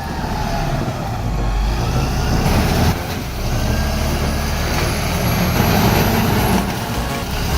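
Heavy machine's diesel engine running under load, loud and steady.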